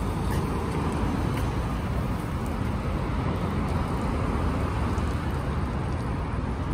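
City street traffic: a steady wash of passing cars and road noise.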